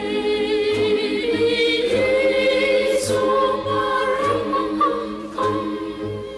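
Choir singing long sustained notes as film score, with a soft low beat about twice a second beneath.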